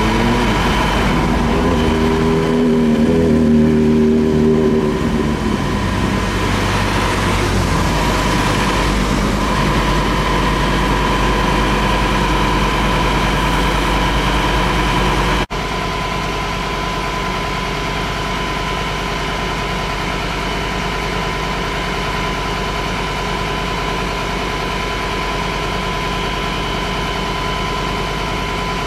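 Diesel engine of a parked Scania P360 fire engine running steadily, with a steady high whine over it. The engine note swells and falls back in the first few seconds, and the level drops slightly about halfway through.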